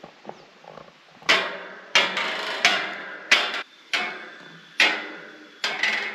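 Footsteps on metal stairs: about eight clanging steps from about a second in, each ringing on briefly.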